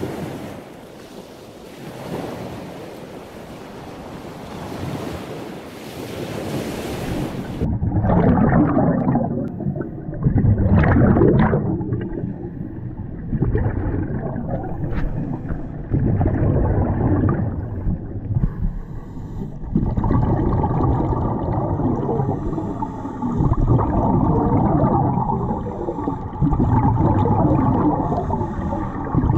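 A steady hiss for the first several seconds, then muffled underwater sound: scuba regulator exhaust bubbles rushing out in a surge every two to three seconds with the divers' breathing.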